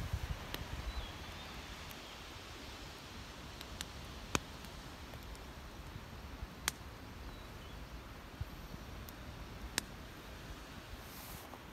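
Wood campfire burning, a faint steady hiss broken by a handful of sharp, isolated pops and cracks. Some low handling rumble in the first second.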